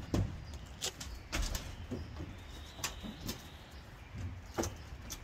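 Irregular knocks and taps on a rusty sheet-metal gazebo roof as a person climbs onto it, putting hands and feet on the metal, over a steady low rumble.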